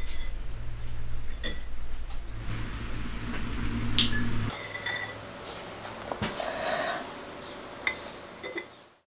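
Spoons clinking against soup plates now and then during a meal, a few light scattered clinks, over a low steady hum that stops about halfway through.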